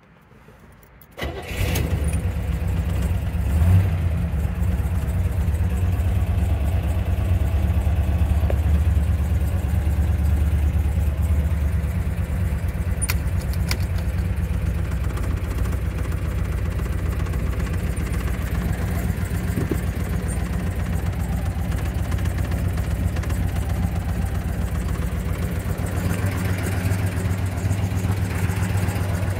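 A 1970 Chevelle SS 396's 396 cubic inch big-block V8 catching about a second in, briefly louder near four seconds, then idling steadily.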